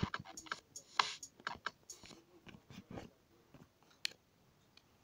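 Irregular light taps and clicks of fingers on a phone's touchscreen, with no music playing.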